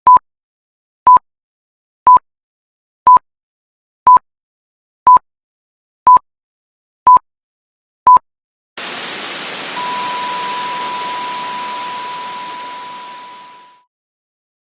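Electronic beeps, nine short identical ones at one-second intervals like a countdown. Then a burst of TV-style static hiss with a steady beep tone held over it, both fading out together.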